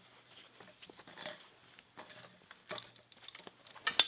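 Small metal parts of a gearbox shift linkage being handled and worked loose: scattered faint clicks and taps, with a few sharper clicks near the end.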